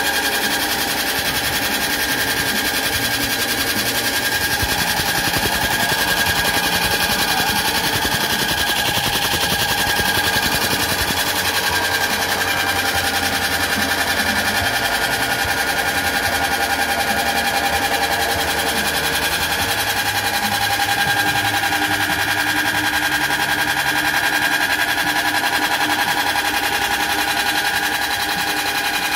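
Electric soybean dehulling machine running steadily: a motor hum under a dense, rapid rattle as dried soybeans are cracked and their skins stripped.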